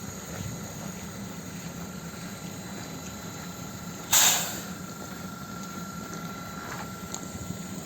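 EG2Tv Ivolga electric train standing with a steady low hum, then a sudden short blast of hissing compressed air about four seconds in, from its pneumatic system. A faint steady whistling tone follows for a couple of seconds.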